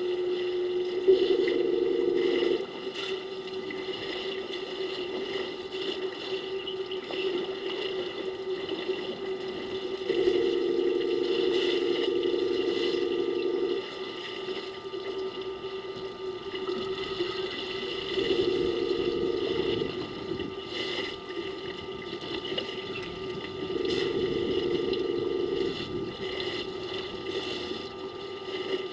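A steady electrical hum, joined four times by a louder mechanical whirr that starts and stops in spells of one to four seconds: the pan-and-zoom motor of a remote wildlife webcam moving.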